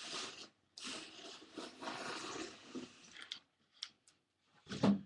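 Packaging rustling and scraping as a canvas painting is slid out of a large, thin parcel, in several long crackly bursts. A few light clicks follow, then a short, louder knock-like sound near the end.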